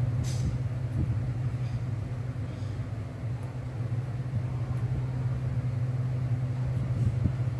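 A steady low mechanical hum, like a motor or fan running, with a brief soft hiss just after it begins.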